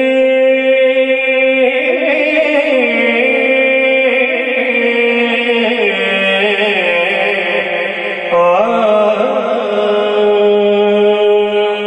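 A man singing a naat into a microphone, drawing out long held notes with a slight waver. The notes step lower twice, and a new, higher phrase begins about eight seconds in.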